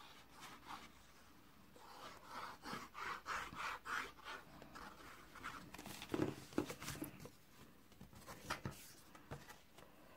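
Quiet squishing and sputtering of liquid craft glue squeezed from a plastic bottle onto cardstock in short strokes, then a few louder knocks and taps around six seconds in as the bottle is set down and the card is handled.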